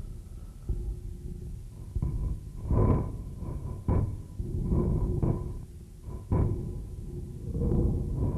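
A series of irregular knocks and thumps over a steady low rumble, with the strongest strikes coming about every second in the middle of the stretch.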